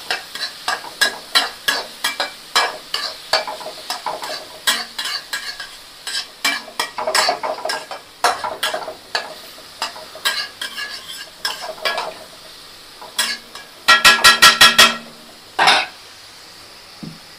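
Metal spatula scraping and stirring chopped onions in a metal kadai, with the hot oil sizzling under irregular clacks of metal on metal. About 14 seconds in comes a quick run of about six ringing metallic taps on the pan, then one more knock, and after that only the faint sizzle.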